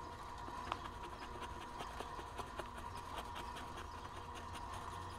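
KitchenAid stand mixer running with its dough hook turning in a bowl of water: a steady motor whine and hum. Over it come faint, rapid ticks and rustling as dry pizza dough mix pours in from a pouch.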